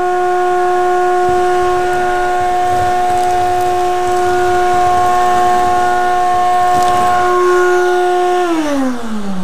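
Vacuum cleaner running with a steady high whine; it is switched off about eight and a half seconds in and the motor's whine falls smoothly in pitch as it spins down.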